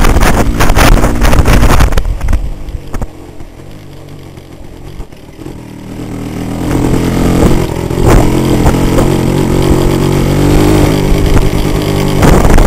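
1978 Yamaha DT400's two-stroke single-cylinder engine under way, with wind gusting on the microphone at first. About two seconds in the engine drops away for a few seconds, then builds back up and runs steadily.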